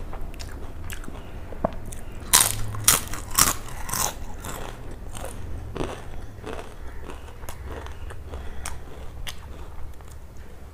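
Crisp papad (poppadom) being bitten and chewed close to the microphone: a run of loud, sharp crunches about two to four seconds in, then quieter, sparser chewing.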